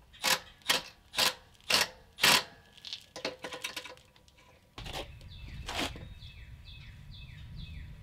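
Hand and power tool work on a nut and bolt: five loud sharp knocks about half a second apart, a few softer clicks, then from about five seconds in a steady low hum with a fast repeating ratchet-like clicking, about four a second.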